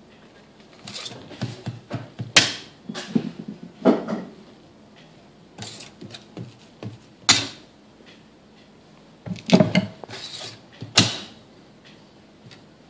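Hand-rolling a cigar on a wooden work table: irregular sharp knocks and taps, about five loud ones, with softer clicks and handling noises between them.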